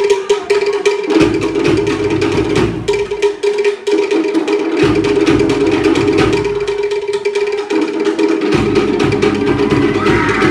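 Pacific Island drumming ensemble: wooden slit drums beaten in a fast, dense rhythm, with a big bass drum joining in stretches about a second in, again halfway through and near the end. A steady held tone runs underneath.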